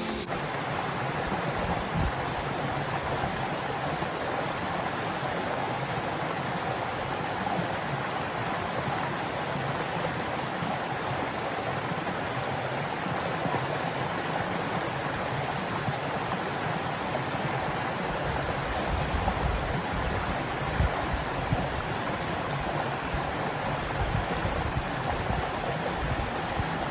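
Waterfall: a steady rush of falling water, with low rumbling in the second half.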